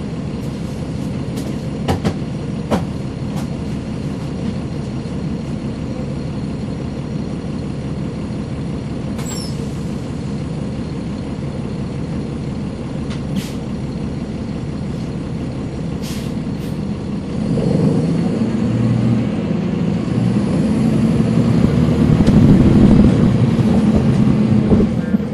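Inside a NABI 40-SFW transit bus, its Caterpillar C13 ACERT diesel engine running steadily, then revving up and growing louder from about two-thirds of the way in as it works harder. A few short clicks early on.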